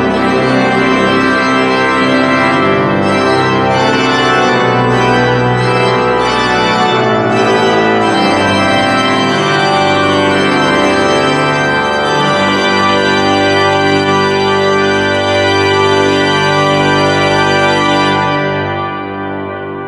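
Seifert pipe organ playing the loud closing chords of a festive march. It ends on a long held final chord, released a couple of seconds before the end, and the sound dies away in the church's reverberation.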